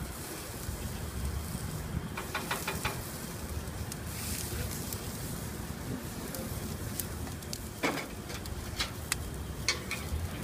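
Zucchini planks sizzling on a gas grill's grates as they are basted with a brush, over a steady low rumble. A few light clicks come in a short run about two seconds in, then more near the end as metal tongs come to the grate.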